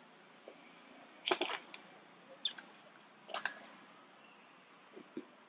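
Scattered short cracks and rustles of monkeys moving about on tree branches, the loudest cluster about a second and a half in, with a few brief high chirps among them.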